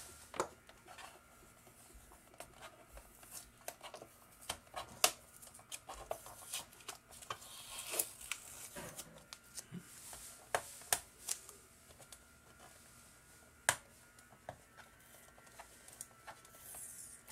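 A sticker label being pried up with a hobby knife and peeled off the plastic underside of an OXO food scale: faint scattered clicks, taps and scraping, with a longer scrape about eight seconds in.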